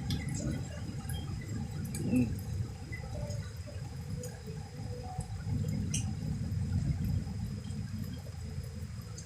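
Heavy rain falling, with scattered drops ticking close by over a steady low rumble.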